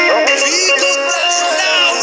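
Music from an Arabic song: an electronic melody stepping between held notes, with short pitch glides.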